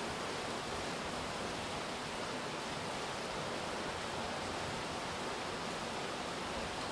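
Steady rainfall: an even, unbroken hiss of rain coming down.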